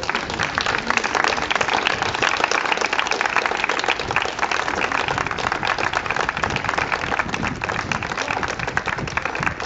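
A crowd applauding: dense, even clapping from many hands that keeps up without a break.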